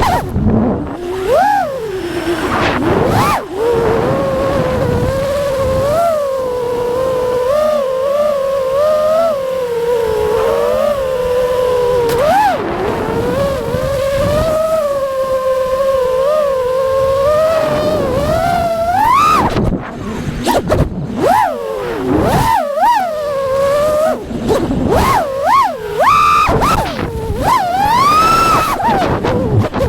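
FPV freestyle quadcopter's motors and propellers whining, the pitch swooping up and down with the throttle: held fairly level through the middle, with quick punches and drops near the start and in the last third.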